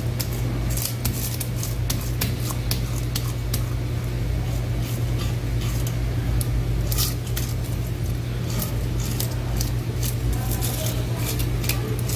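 A blade cutting raw fish during filleting: a run of short, crisp, irregular cutting strokes over a steady low hum.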